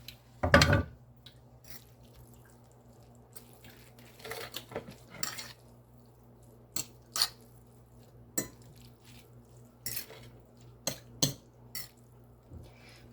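Metal utensils clinking and scraping against cookware: a loud clatter about half a second in, then scattered single clinks and short scrapes.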